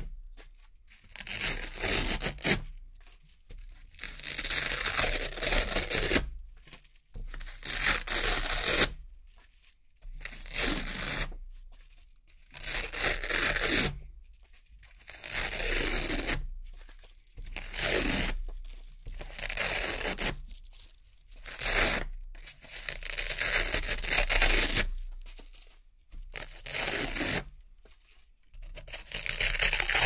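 Velcro hook-and-loop patches peeled off one after another: about a dozen crisp ripping tears, each a second or two long, with short pauses between.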